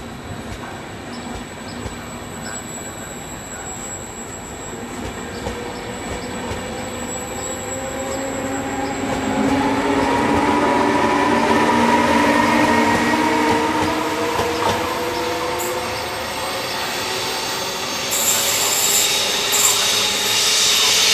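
Regional electric train of double-deck Vivalto coaches with an E.464 electric locomotive running through the station: steady rumble of wheels on rails, a whine rising in pitch through the middle, and high-pitched wheel squeal near the end.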